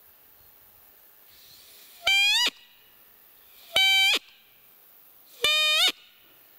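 Roe deer call (manok) blown three times, evenly spaced: short, high squeaky tones, each holding steady and then rising in pitch at its end. It is used to lure a roe buck during the rut.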